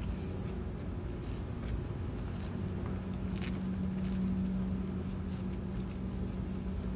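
Steady low mechanical hum, swelling for a couple of seconds about three seconds in, with a few faint light clicks over it.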